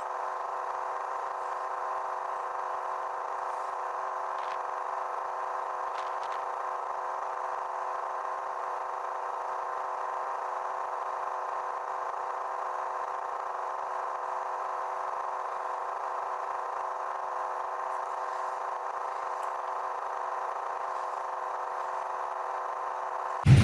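Electric radiator cooling fans running at a steady whir.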